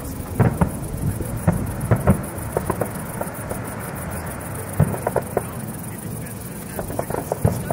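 Fireworks bursting: scattered sharp bangs and crackling pops in clusters about half a second in, around two seconds, near five seconds and about seven seconds in, over a steady low rumble.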